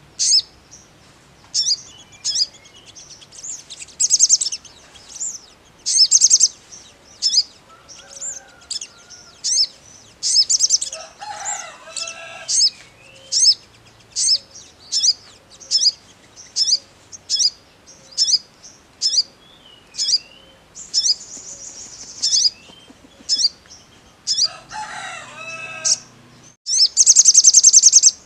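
Male olive-backed sunbird (sogon) singing: short, sharp high chirps about once a second, broken by a few rapid trills, the loudest a fast buzzy trill near the end.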